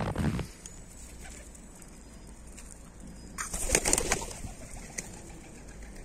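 Feral pigeon's wings flapping for about a second, midway through, as it comes down beside the duck, after a brief rustle at the very start.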